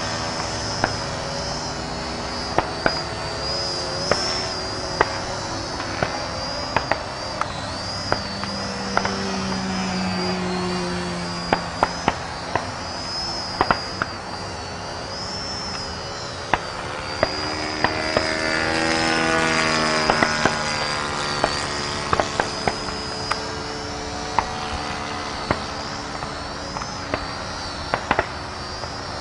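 The electric motor and propeller of an Art-Tech Yak 54 3D radio-controlled aerobatic plane whine as it hovers and manoeuvres, the pitch wavering with the throttle. About two-thirds of the way through it grows louder and its pitch slides as the plane passes close. Sharp clicks are scattered throughout.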